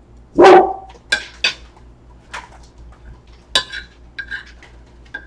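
A metal fork clinking and scraping against a ceramic dinner plate while scooping fried rice: one loud knock about half a second in, then several short, sharp clinks.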